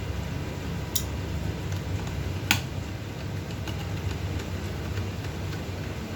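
Small sharp clicks of tools and drone gimbal parts being handled during disassembly: two distinct clicks about a second and a half apart, the second louder, with a few fainter ticks. A steady low hum runs underneath.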